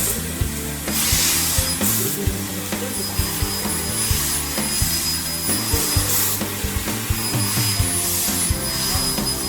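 Background music with a beat, with recurring bursts of hiss every second or two.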